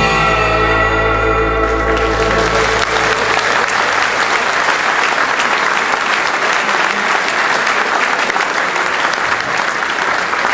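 An electric guitar band's final chord, with guitars and bass, ringing and fading out over the first two to three seconds, while audience applause rises and then fills the rest.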